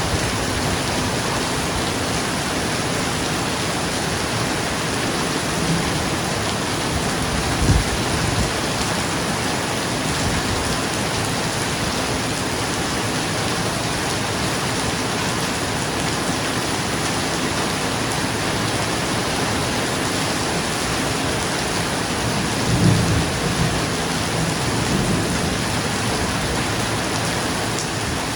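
Steady rain falling on a roof, with thunder underneath: a short low clap about a quarter of the way in, then two longer low rumbles later on.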